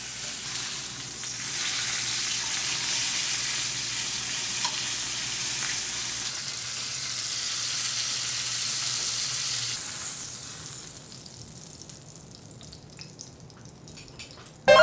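New York strip steak searing in hot oil in a stainless steel pan: a steady sizzle, the sign that the pan is hot enough. The sizzle stops about two-thirds of the way through, leaving a quieter stretch with a few faint clicks.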